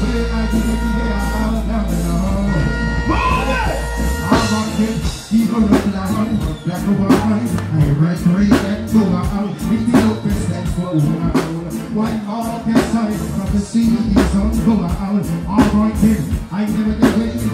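Live reggae music played loud through a concert PA, a vocalist singing into a microphone over the band. A deep held bass note for the first few seconds gives way to a steady drum beat.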